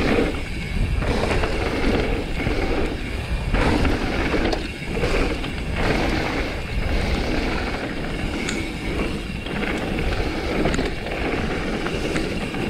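Mountain bike descending a rough dirt trail at speed: a steady rush of tyre noise on dirt and stones and rattling of the bike, with wind on the microphone and a few faint clicks.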